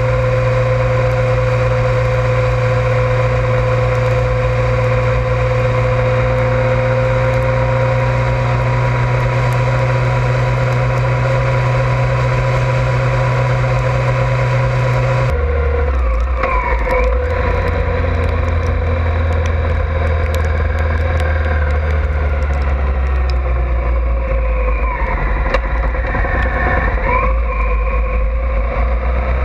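Honda ST1100 Pan European's V4 engine running on the move, with road noise. It holds a steady cruising note, then changes abruptly about halfway to a deeper note whose pitch dips and climbs back a few times as the revs change.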